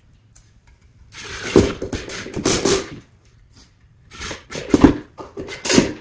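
Cordless impact drill driving screws into the corner joint of a wooden beehive box, in two runs: one starting about a second in, the second about four seconds in.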